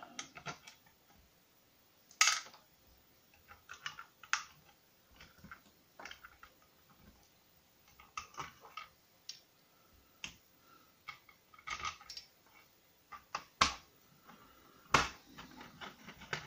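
Scattered small clicks and taps of short screws and 3D-printed plastic parts being handled and screwed together with a small screwdriver, with a few sharper clacks.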